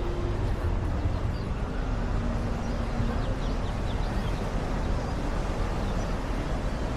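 Steady rushing outdoor ambience of a walk along Waikiki Beach, heavy in the low end, with small birds chirping faintly now and then.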